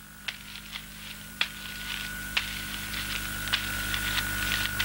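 Steady high-pitched whine over a low electrical hum, growing steadily louder, with a few faint clicks at irregular intervals.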